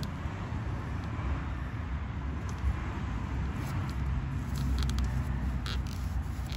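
Steady low rumble of nearby road traffic, with a few light clicks and taps in the second half.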